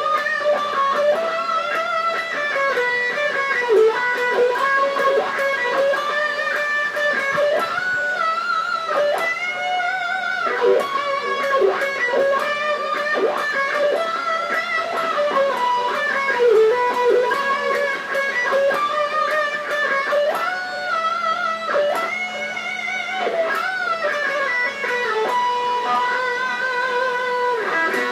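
Electric guitar playing an instrumental lead melody, with long held notes, bends and vibrato.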